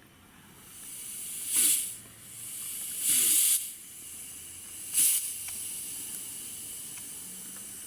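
Compressed air hissing: a steady hiss with three short, louder blasts about a second and a half apart, the middle one the longest.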